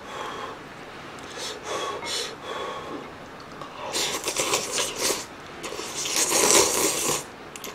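Ramen noodles from a pot of army base stew being slurped up and chewed: soft chewing at first, then two long, loud slurps, about four and six seconds in.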